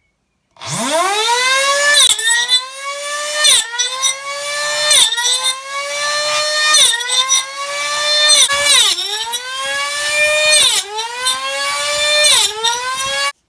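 Homemade mini chop saw: a small DC motor spinning a toothed circular blade whines up to speed, then drops in pitch each time the blade is pressed into a wooden strip, about every one and a half seconds, and climbs back between cuts. The sound cuts off suddenly near the end.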